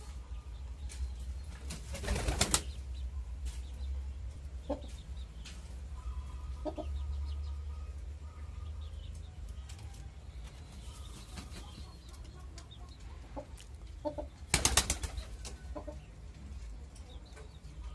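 Pigeons' wings flapping in two short bursts of rapid beats, about two seconds in and again near the end, as birds take off from or land on their perches.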